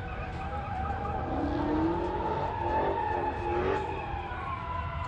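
Car tyres squealing: a long, slightly wavering high screech over a steady low rumble.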